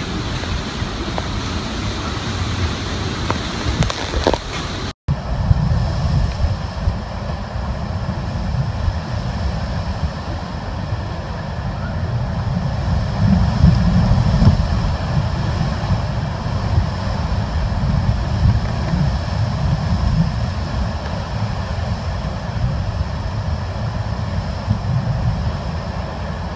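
Hurricane-force wind with driving rain. About five seconds in, a cut brings heavy wind buffeting the microphone as a deep, gusting rumble.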